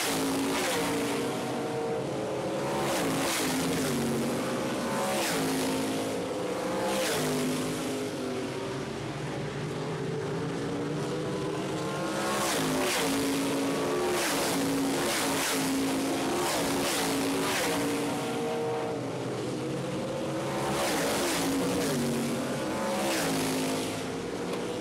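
Winged 360 sprint cars' V8 engines racing by at speed on a paved oval. Several cars pass close in turn, each a loud rush whose engine note drops in pitch as it goes by, over the steady drone of the rest of the field around the track.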